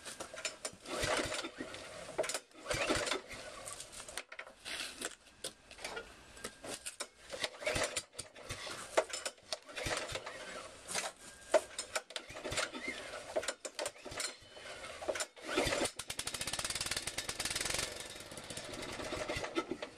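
An Exmark mower's small engine being cranked over and sputtering in irregular bursts without settling into a steady run. It is hard-starting because the choke is not fully on.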